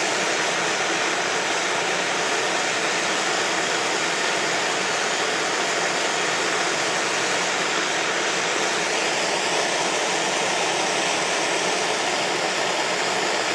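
Propane gas torch burning with a steady hiss, its flame held on a steel joint to heat it for silver soldering.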